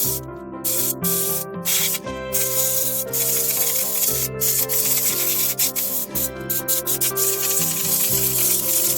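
Rubbing and scrubbing strokes in repeated bursts, likely the laptop cooler being cleaned, over background music.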